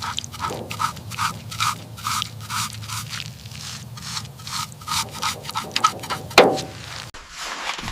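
Hand scraping strokes on a corroded surface, repeated evenly about two and a half times a second over a steady low hum, with one louder scrape near the end.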